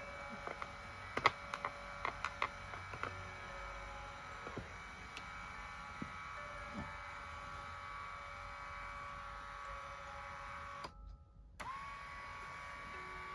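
Massage cushion's electric motor and gear drive running, a steady whine made of several tones, with a cluster of clicks and taps in the first three seconds. Near the end it cuts out briefly and starts again, its pitch rising as it comes back.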